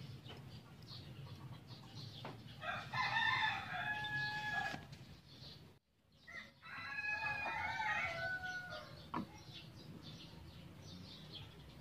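A rooster crowing twice, each crow about two seconds long, with a brief dropout between them.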